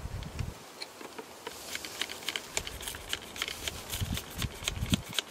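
A screened package of honeybees being misted with sugar water from a spray bottle: quick, irregular clicks and patter over faint buzzing, with a few soft low thumps.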